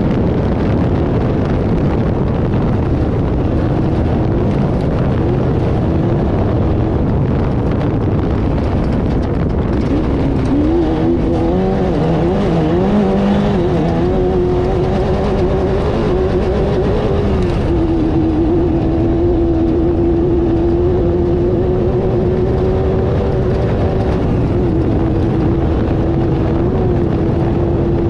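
Off-road race car engine running hard over a heavy rumble of the ride. The revs rise and fall unevenly for several seconds about a third of the way in, then hold steady.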